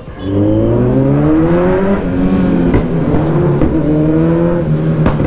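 Superbike engine pulling away and accelerating: the pitch climbs, drops at a gear change, climbs again through a second and a third gear change, then holds steady near the end.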